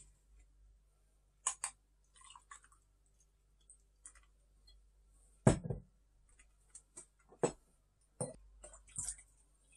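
A glass bottle and an ice-filled glass tumbler handled on a table: scattered sharp clinks and knocks, the loudest a heavy knock about five and a half seconds in, with a brief rattle of ice early on.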